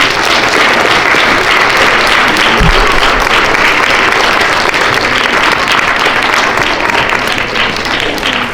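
An audience of school students applauding, a dense steady clapping that starts just before and fades a little near the end.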